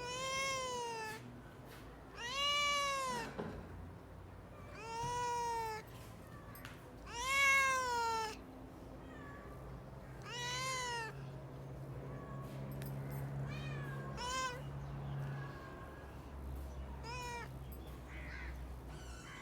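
A cat meowing repeatedly, about eight meows, each rising then falling in pitch. The first five are long and come a couple of seconds apart; the last three, after about 13 seconds, are shorter.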